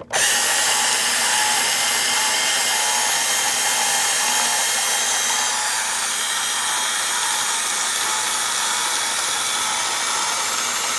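Battery-powered Road Rippers Ford F-150 Raptor toy truck running, a loud steady mechanical noise with a faint thin whine that starts abruptly and holds level.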